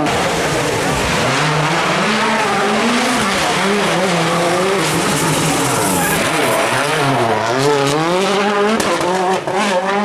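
World Rally car's turbocharged engine revving hard, its pitch climbing and dropping repeatedly as the driver works the throttle and gears through tight asphalt corners, with tyres squealing as the car slides.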